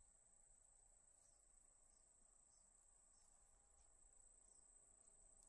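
Faint, steady high-pitched trilling of crickets.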